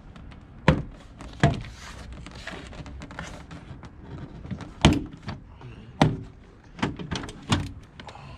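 Hard plastic door trim panel being worked loose from a car door: a series of about seven sharp knocks and clunks at uneven gaps.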